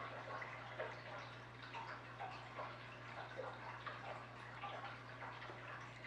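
Tap water filling a 180-gallon glass aquarium: faint, irregular trickling and drip-like plinks of water splashing into the tank, over a low steady hum.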